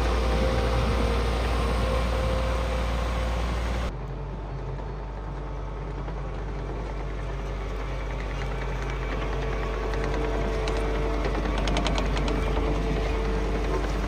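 Kato CL35 compact track loader running and driving, its diesel engine humming steadily. The sound drops abruptly about four seconds in, and a few light rattles come near the end.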